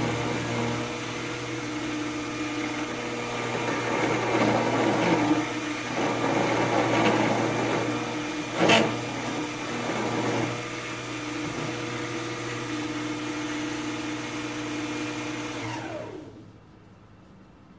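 775 DC motor spindle running a 10 mm end mill through aluminium, a steady motor hum overlaid with rougher cutting noise that swells in the middle, with one sharp loud bite a little before halfway. Near the end the motor is switched off and winds down, its pitch falling.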